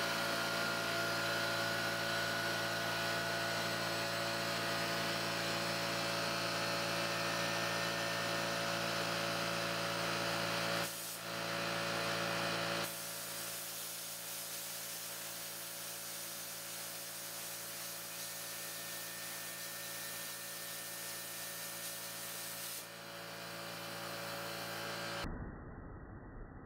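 Plasma cutter with an S45 torch cutting quarter-inch plate: a steady hiss of the arc and air jet over a humming drone. It drops out briefly about 11 seconds in, goes on a little quieter from about 13 seconds, and stops about a second before the end.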